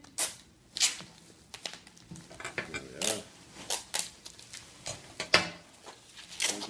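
Packing tape being pulled off the roll in a string of short rips, with rustling of plastic wrap, as bottles are bundled for packing.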